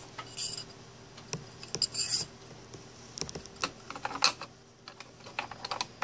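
Handling noise as hands work an RCA audio cable through a turntable's metal connector plate and set the plate in place: scattered small clicks and light metallic taps, with brief scraping rustles about half a second and two seconds in.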